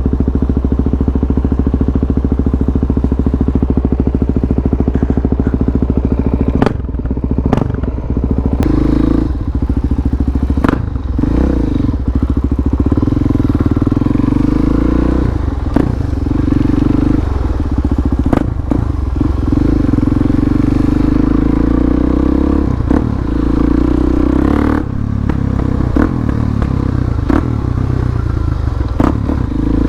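Harley-Davidson Dyna's V-twin engine running on the move, heard from the bike. The engine holds a steady note for about the first six seconds, then its pitch shifts up and down as the ride goes on. Several sharp knocks and clatters come through from about six seconds in.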